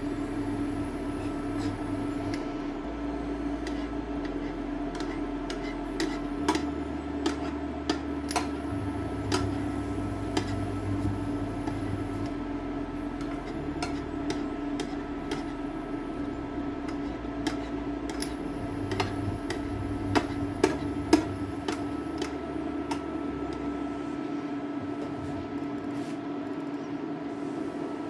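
Induction hob running with cookware on its glass top: a steady electrical hum with scattered light ticks and clinks of the pan, and a few sharper clinks a little past the middle.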